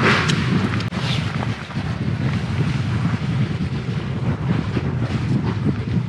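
A landed ray gives a short breathy hissing cry, 'fan…', at the start, with a fainter one about a second later, over a steady rumble of wind on the microphone.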